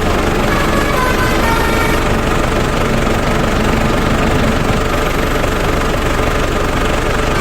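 Truck engine idling with a steady, even low rumble. Faint high tones sit over it for the first couple of seconds.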